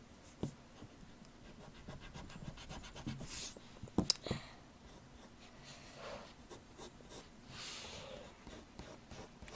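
Faint scratching of a graphite pencil drawing on paper, in short strokes, with one sharp tap about four seconds in.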